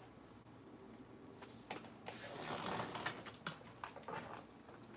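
Faint crunching and small clicks of someone chewing crisp salad lettuce close to the microphone, most active a couple of seconds in.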